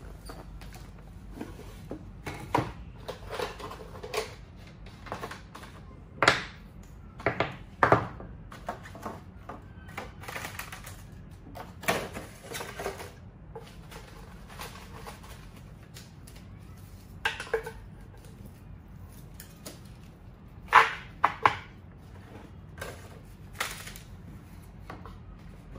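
Wooden and plastic gardening items (a wooden dibber, a wooden pot maker, a plastic seed tray) handled and set down on a glass tabletop and in a wooden box: scattered clicks and knocks, a few of them sharper and louder.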